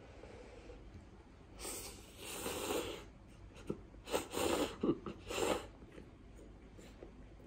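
A man slurping hot instant ramen noodles from a cup: one long slurp, then two shorter ones about a second and a half later.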